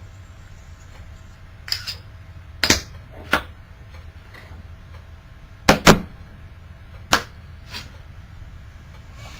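A handful of sharp clacks and knocks, hard objects set down or tapped against a sharpening stone, the loudest pair a little past the middle, over a low steady hum.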